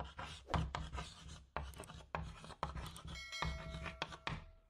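Close-up scratching and rubbing of wax-seal crafting, broken by many small sharp clicks and taps, with a faint ringing tone from about three seconds in.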